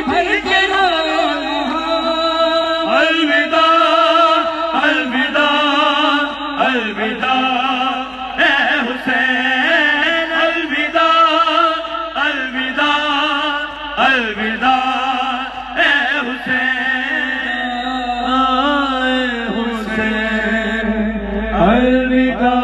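A male voice chanting a noha (Shia mourning lament) through a microphone: long held, wavering melodic lines with no instruments.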